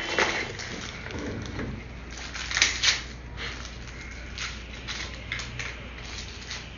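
Irregular light clicks and taps of a Boston terrier puppy's claws on an exam-table mat as it shifts its feet, with two louder clacks close together a little before the middle.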